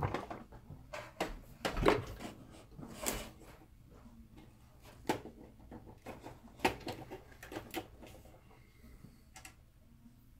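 Irregular clicks and knocks of tools and objects being handled and set down on a workbench, thinning out toward the end.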